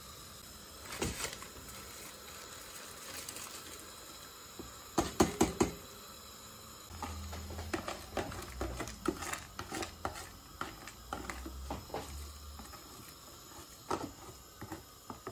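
Water boiling in a large steel pot as soaked rice is tipped in from a plastic tub. A quick run of loud knocks comes about five seconds in, then scattered clicks and taps as a fork scrapes the last grains out of the tub into the pot.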